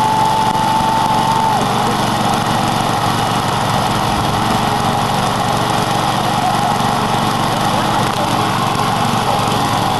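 Lawn mower engine running steadily, with a thin high squeal over it for about the first second and a half and again near the end.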